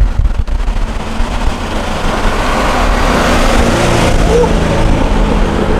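Car engine running under way, with road and wind noise that swell about three seconds in.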